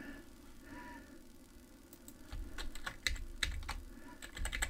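Computer keyboard keys clicking in an irregular run, starting about halfway through after a quiet stretch.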